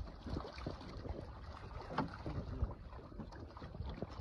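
Live carp flapping and splashing as they slide in a mass from a mesh net into pond water: a dense, irregular run of wet slaps and splashes.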